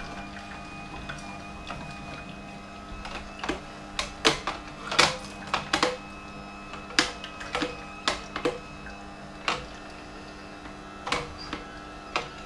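Philips masticating juicer running with a steady motor hum while apple is fed down the chute, with irregular sharp cracks and knocks as the pieces are pressed in and crushed by the screw.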